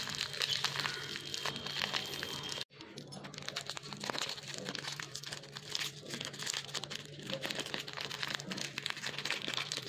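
Plastic Oreo biscuit packet crinkling and rustling as fingers pick open one end of it, with crushed biscuits inside. The crinkling is continuous but breaks off for a moment about a third of the way through.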